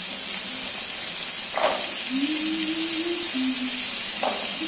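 Onion-tomato masala sizzling in a frying pan as boiled green peas are tipped in by hand, with two brief soft knocks of peas and spoon landing in the pan. A low steady hum that shifts in pitch joins about two seconds in.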